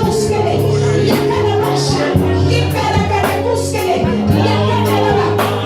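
Worship music with singing over a steady beat and sustained bass notes.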